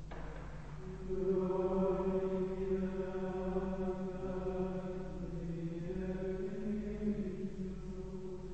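Carthusian plainchant: unaccompanied male chant in long, slowly moving held notes, with a new, louder phrase entering about a second in.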